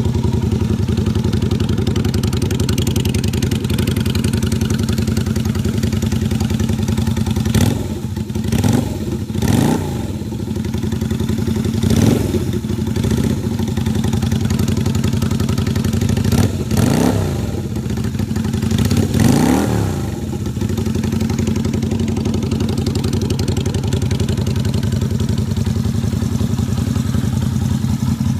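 Yamaha Virago XV250's V-twin running through a new aftermarket exhaust with slash-cut pipes. It idles steadily, and through the middle stretch the throttle is blipped several times, each a quick rise and fall in revs, before it settles back to idle.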